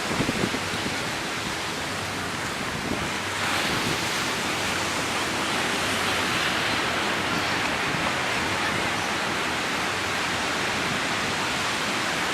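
Ocean surf washing onto the beach, a steady rushing that swells a little louder about three and a half seconds in, with wind on the microphone.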